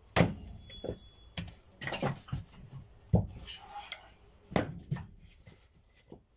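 Firewood being handled: a string of sharp, irregular wooden knocks and clatters as pieces of split wood strike each other or are chopped.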